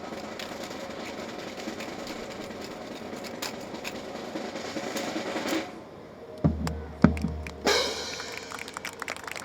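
A continuous drum roll that stops about five and a half seconds in, followed by three loud sharp knocks with deep thuds a little over half a second apart. Clapping breaks out right after the last knock.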